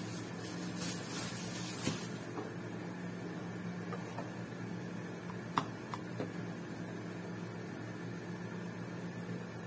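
A steady low background hum, with soft rustling from hands handling modelling clay over the first two seconds and a small sharp click about halfway through.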